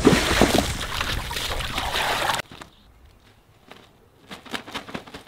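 Water splashing and spraying up out of a small inflatable kiddie pool after a cannonball jump: a dense rush of water that cuts off abruptly about two and a half seconds in. After that, only faint scattered clicks.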